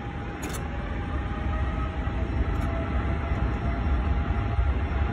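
Jet airliner engines running with a low rumble and a faint steady whine, growing louder about two seconds in as the engines spool up.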